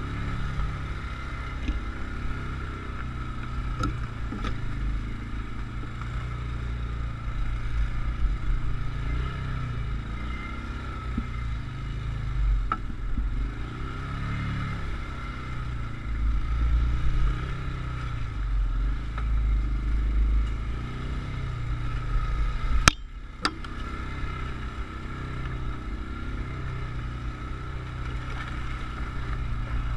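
Motorcycle engine running on an off-road trail ride, its revs rising and falling, with occasional knocks and rattles. One sharp knock about three quarters of the way through, followed by a brief dip.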